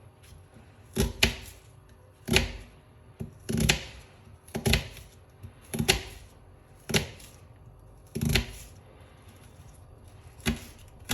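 Kitchen knife cutting through onions and knocking on a cutting board, about a dozen sharp strokes roughly a second apart, some in quick pairs.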